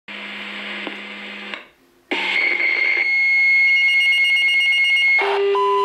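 Fire dispatch alert tones coming through a radio scanner's speaker, with hiss: a steady tone for about a second and a half, a brief pause, then a long high steady tone for about three seconds, switching to a lower tone near the end.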